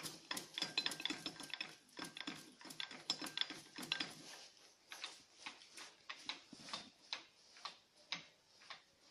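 Apron handwheel of a 1K62 screw-cutting lathe turned by hand, its gearing giving dense metallic clicking and clatter with some ringing for the first four seconds, then thinning to an even series of single clicks about two a second. The owner puts this down to worn carriage gearing with play to be taken out.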